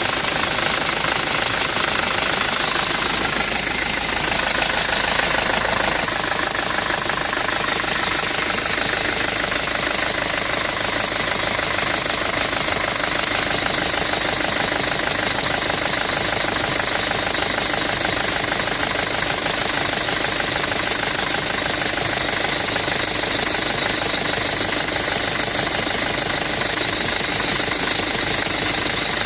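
Nissan Navara D22's engine running steadily with a fast, even clatter.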